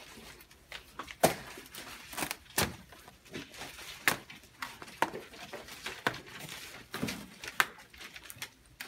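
Scissors snipping and the paper and tape wrapping of a package crackling and tearing as it is cut open: irregular sharp clicks and rustles, several of them loud.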